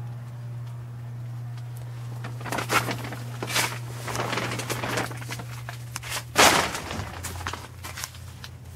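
Irregular rustling and scuffing, with the loudest rustle about six and a half seconds in, over a low steady hum.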